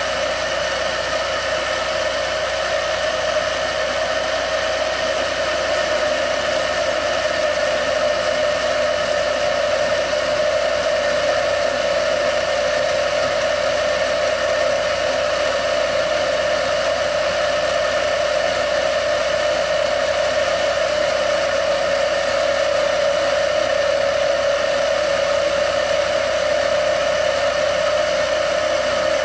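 Chicago Electric portable band saw starting up and running steadily, its blade sawing slowly through a piece of steel with an even, unbroken whine.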